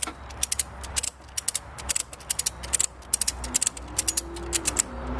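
Ratchet strap's ratchet clicking in quick runs of sharp clicks as its handle is worked, winding in the strap.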